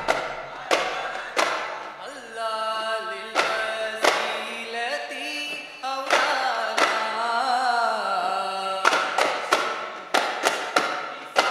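Duff muttu: daf frame drums struck by a group, with voices singing. Spaced sharp drum strokes open, a long sung line runs from about two seconds in to nine seconds with only occasional strokes, then rapid drumming resumes.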